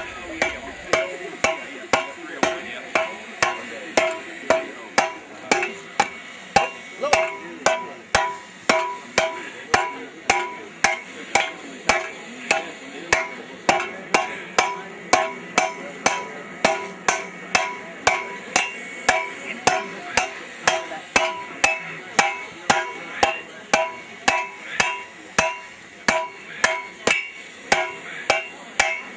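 Sledgehammers striking hot steel on an anvil in turn, a steady beat of about two blows a second, each blow followed by a short anvil ring. This is the forging of steel stock into a cut-off hardy.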